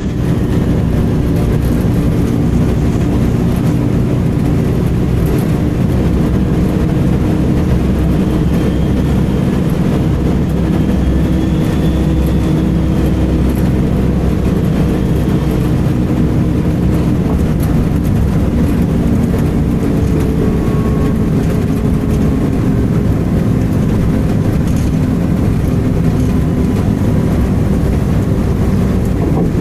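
Volvo B10M bus under way, its mid-mounted diesel engine and road noise running steadily as heard on board. Faint high-pitched screeching tones come and go over the rumble, most noticeably around the middle.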